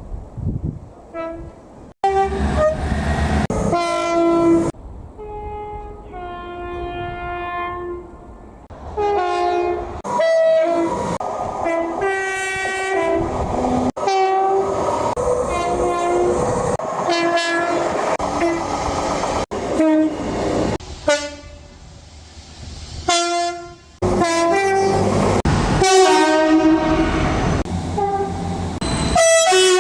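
British train horns sounding in a run of short clips joined by abrupt cuts: a series of steady horn blasts at changing pitches, with the noise of trains running on the rails beneath.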